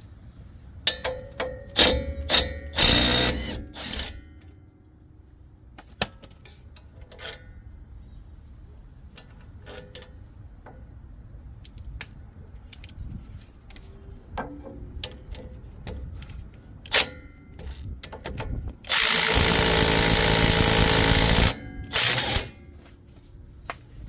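Cordless right-angle impact wrench hammering out the front wheel hub's 18 mm mounting bolts. There are several short bursts near the start and one long burst of about two and a half seconds near the end, with sharp clicks and clanks of metal and tools in between.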